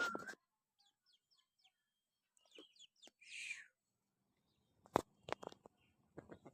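Parrots calling faintly: a few short chirps, a brief harsh squawk about three seconds in, then a series of sharp clicks and taps from about five seconds on.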